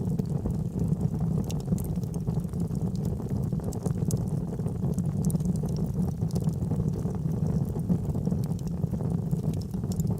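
Fire burning in a fireplace: a steady low rush of flame with frequent small, sharp crackles and pops scattered through it.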